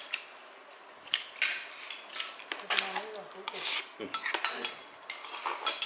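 Eating utensils clinking and scraping against bowls and dishes during a meal, in irregular light clicks.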